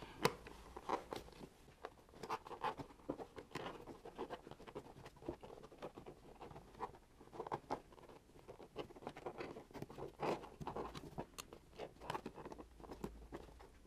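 Faint, irregular rustling, scratching and small plastic clicks of gloved hands working a wiring cable and its connector along a motocross bike's aluminium rear subframe and plastic rear fender.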